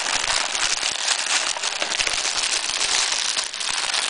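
Clear cellophane gift wrap crinkling and crackling in a dense, continuous rustle as a small dog noses and pulls at the wrapped present.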